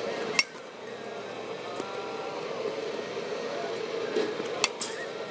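Bat striking pitched balls in a batting cage: a sharp crack about half a second in, and another near the end, followed quickly by a second knock. A steady mechanical hum runs underneath.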